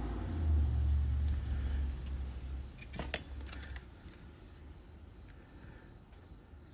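A low rumble for the first two and a half seconds, then a quick cluster of clicks and knocks about three seconds in. After that, crickets chirp faintly in a steady pulsing rhythm.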